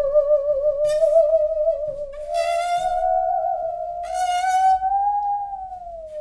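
A wood-cutting handsaw played as a musical saw: one sustained, eerie wavering tone that climbs slowly, then sinks near the end. It is the ghost-and-spirit sound effect of old Tamil films.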